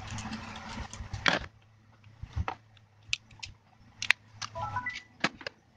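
Small sharp plastic clicks and taps as a flip phone's casing and parts are handled and fitted back together, irregular and a fraction of a second apart. A short run of electronic beeps rising stepwise in pitch comes a little after four and a half seconds.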